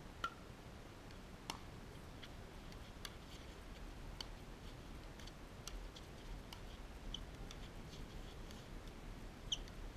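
Pickleball rally: paddles striking a plastic pickleball, a string of sharp pocks every second or so, with fainter ticks between; the hardest hits come just after the start and near the end.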